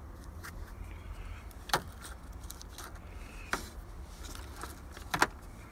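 A few sharp light clicks from handling, the last two close together near the end, over a low steady rumble.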